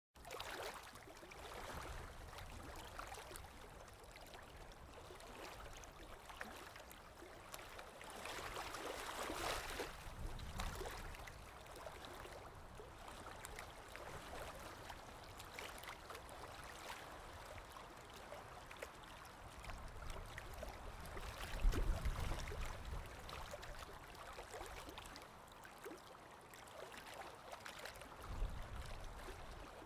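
Water lapping in small, irregular washes, with wind blowing across it in low gusts; the strongest gust comes about two-thirds of the way in.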